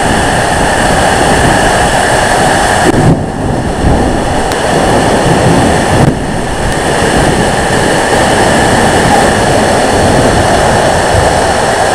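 Heavy thunderstorm rain pouring down in strong, gusty wind: a loud, steady roar with the wind buffeting the microphone. It eases briefly twice, about three and six seconds in.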